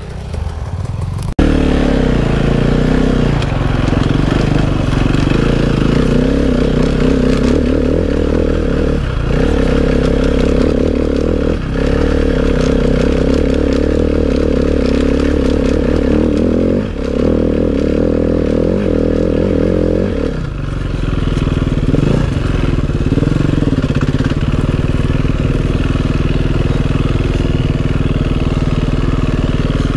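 Enduro motorcycle engine running under load close to the microphone as the bike rides a snowy trail. The note drops out briefly about four times in the middle, as the throttle is rolled off, then settles slightly lower.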